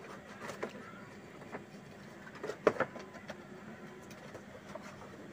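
A cardboard shipping box being opened and handled: scraping and rustling with scattered clicks, and a few sharp knocks about two and a half seconds in, the loudest sounds here.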